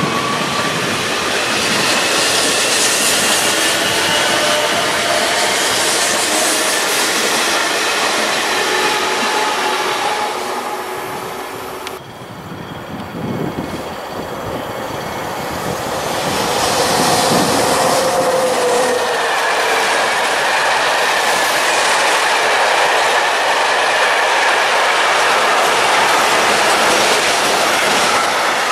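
Freight train rolling past: loud running noise from the wagons on the track, with thin drawn-out squealing tones from the wheels. The noise drops for a few seconds near the middle, then comes back at full level.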